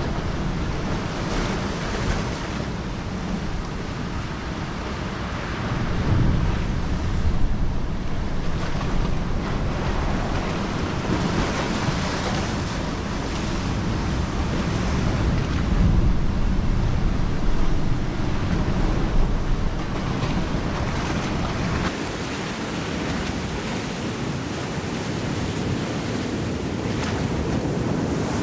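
Sea surf washing against rocks, with wind buffeting the microphone as a low rumble; the wind rumble drops off near the end.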